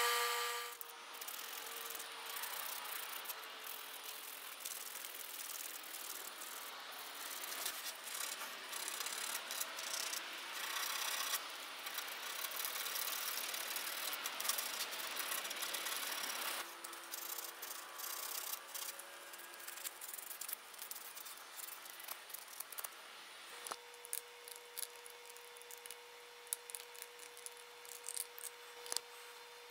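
A bench belt sander spins down in the first second or two. Then a small purpleheart wooden ring is sanded by hand with sandpaper, making a continuous scratchy rubbing, and in the last few seconds there are scattered light clicks and taps.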